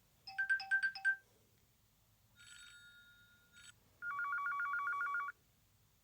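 Huawei Y6s phone ringtones previewed in turn: a quick run of about five short beeps, then a fainter ring about a second long, then a louder fast trilling ring, about nine pulses a second, like a telephone bell. Each sample stops short after about a second.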